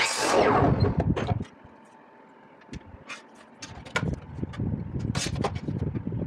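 DeWalt sliding miter saw cutting through a wooden strip, a loud burst that fades over about a second and a half. It is followed by scattered clicks and knocks as the board is slid along the saw table into place.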